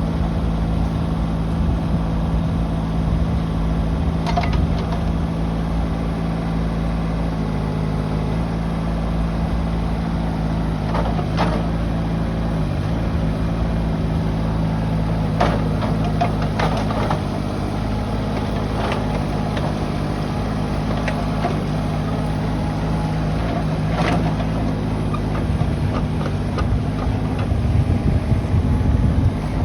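Kubota K008T4-3 mini excavator's diesel engine running steadily, its note stepping in pitch a few times, with occasional sharp metallic clanks from the machine.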